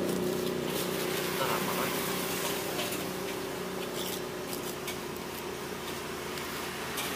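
Street-stall wok cooking: a steady hiss with metal scraping and a few sharp clinks of a spatula against the wok, over a low steady hum.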